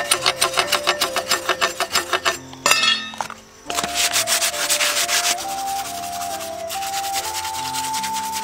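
Blade scraping the green skin off a bamboo pole in quick even strokes, about five a second, then a short louder burst. After that comes sandpaper rubbed steadily along the bamboo, a dense scratchy hiss.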